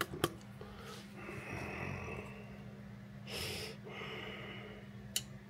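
Quiet room tone with a steady low hum, a few light handling clicks near the start and another near the end, and a breathy exhale through the nose about three and a half seconds in.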